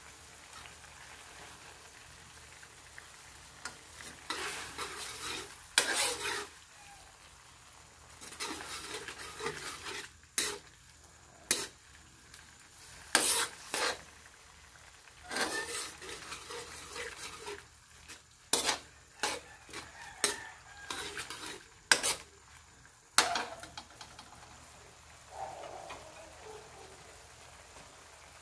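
Metal ladle scraping and clinking against an aluminium wok while a mushroom and tofu stir fry in sauce is stirred, over a light sizzle. The strokes come in irregular bursts through the middle and die down near the end.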